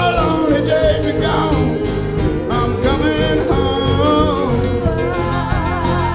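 Live rock-soul band with drums, keyboards, guitars and horns playing loudly, with a voice holding notes that waver in vibrato over a steady drum beat.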